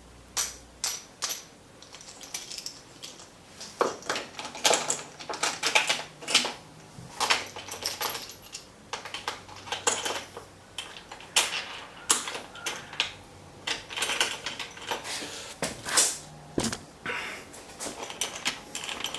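Small clamping blocks and parts of a table saw sled being handled and set in place: irregular sharp clicks and knocks, at times several in quick succession.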